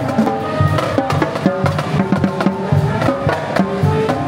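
High school pep band playing: brass (trumpets, sousaphones, French horn) holding notes over a marching drumline of snare and tenor drums hitting a quick, steady rhythm.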